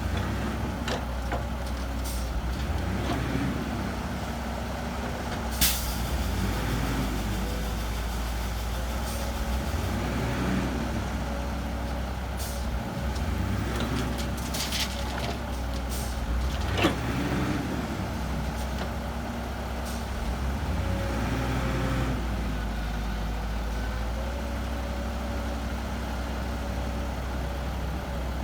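Heavy diesel engines of dump trucks and a bulldozer running at an earthmoving site, the engine note rising and falling every few seconds as the machines work. Two sharp bangs stand out, about six seconds in and again near the middle.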